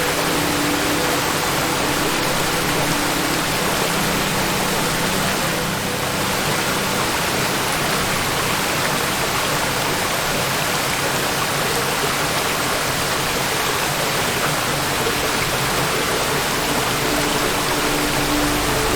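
Waterfall: water falling and rushing steadily, a continuous even noise.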